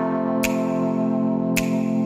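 Electronic music: sustained chords with a sharp percussive hit about once a second.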